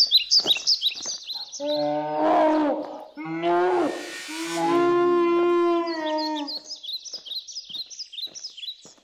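A man's long, drawn-out yell in two breaths, the second held longer, as he charges on foot. Running footsteps on grass and high bird chirps are heard before and after it.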